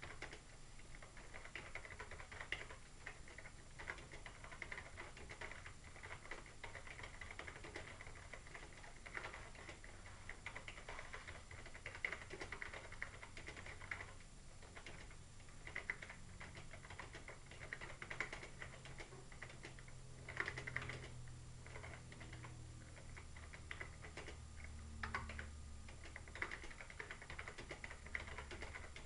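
Computer keyboard being typed on: quick runs of light key clicks broken by short pauses, over a faint low hum.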